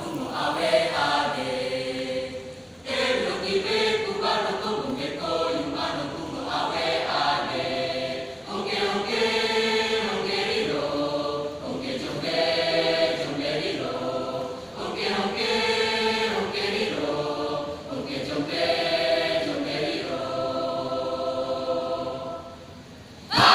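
Choir singing a song in phrases, with short breaks between them. The singing stops about a second before a sudden loud burst at the very end.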